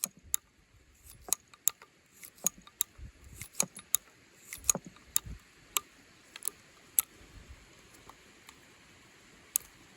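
Heritage Rough Rider .22 single-action revolver being unloaded: sharp metallic clicks and clinks at uneven intervals, a few a second, thinning out after about seven seconds.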